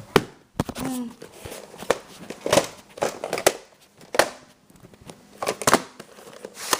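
A VHS tape's plastic packaging and case being handled and opened, with irregular crinkling and sharp plastic clicks.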